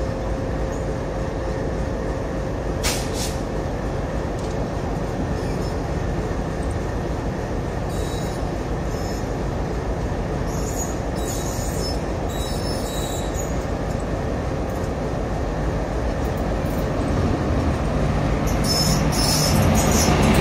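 A WAP4 electric locomotive hauling an express train approaches along the track: a steady rumble that grows louder over the last few seconds as the locomotive comes alongside, with scattered short high-pitched notes.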